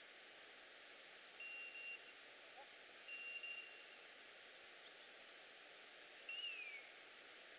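Faint electronic beeps from a hunting dog's beeper collar: two steady single-pitch beeps, then a short falling tone near the end, over a steady field hiss.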